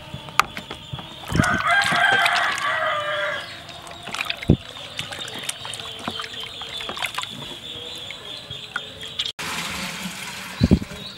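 A rooster crows once, about a second in, for roughly two seconds. Under it, water splashes and sloshes as a fish is rubbed clean by hand in a basin, with a few short knocks.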